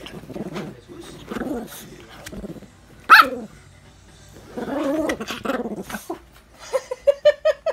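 Small dog growling and snarling as it play-bites at a hand, with one sharp bark about three seconds in.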